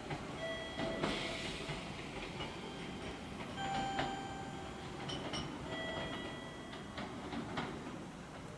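Electric train moving along the station platform: a steady rumble with a few sharp clicks from the wheels over rail joints, and high steady tones that come and go.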